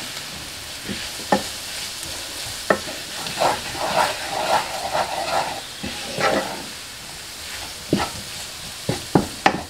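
Green peppers, onions and spice paste sizzling in a deep skillet while being stirred with a wooden spoon, with a steady hiss under irregular knocks and scrapes of the spoon against the pan.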